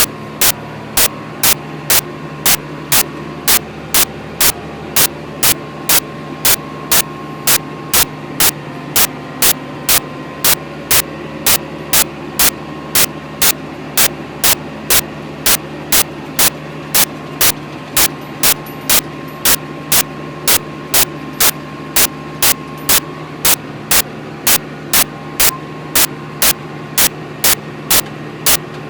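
John Deere 8400T track tractor's diesel engine running steadily under load while pulling a chisel plough. Over the drone comes a sharp, regular tick about twice a second, louder than the engine.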